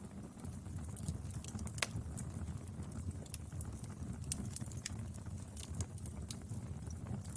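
Wood fire burning: a low steady rumble with scattered sharp crackles and pops, the loudest a little under two seconds in.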